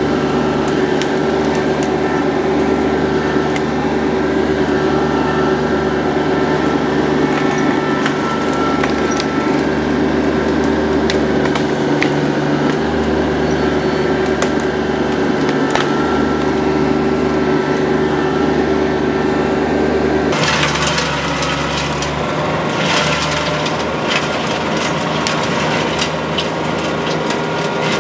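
A TYM T25's 25 hp diesel engine runs steadily while its front grapple pushes into a brush pile, with branches cracking and snapping. About 20 seconds in, the sound changes to a PTO forestry mulcher running behind the tractor with dense crackling as it chews wood.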